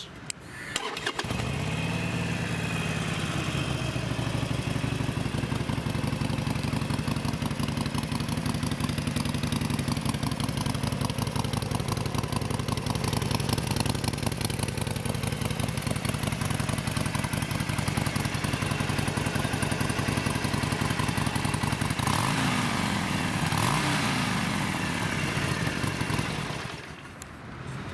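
Harley-Davidson Sportster 1200 Forty-Eight's air-cooled V-twin starting about a second in and idling steadily through its chrome staggered pipes. Near the end it is revved a couple of times, then it shuts off.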